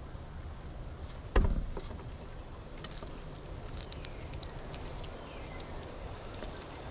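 A single loud thump about a second and a half in, as a gray squirrel lands on the feeder table close to the microphone, followed by faint scattered clicks of the squirrel picking through the seed.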